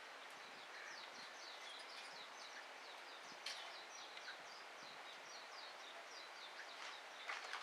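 Small songbirds twittering: a quick, continuous series of short high chirps over a steady background hiss, with two sharp clicks, one about halfway through and one near the end.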